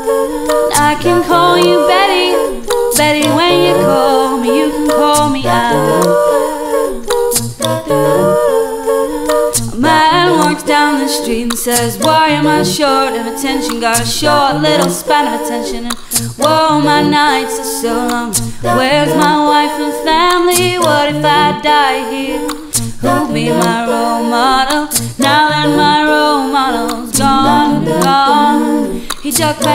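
Layered a cappella vocal loops: a woman's voice stacked in several parts, recorded and played back on a Boss RC-300 loop station, with a low line stepping from note to note under higher harmonies and a steady run of sharp percussive clicks keeping the beat.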